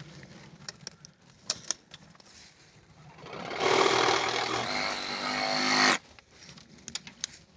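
Einhell 18V cordless reciprocating-saw tree pruner running for about three seconds, its blade sawing a gripped branch, then stopping abruptly. A few light clicks and knocks come before it.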